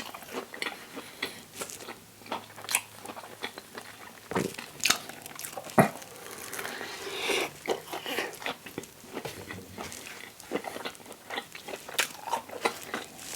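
Close-miked chewing of a vegan sausage and cheese sandwich on a toasted English muffin: irregular sharp mouth clicks and bites.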